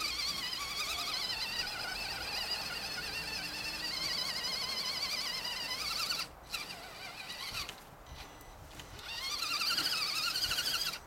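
Electric motor and gearbox of an Axial SCX10 RC crawler whining under throttle: a 21-turn brushed Traxxas motor. The whine wavers in pitch, drops away briefly about six seconds in and is weaker for a second or so after. It then rises in pitch and comes back louder near the end.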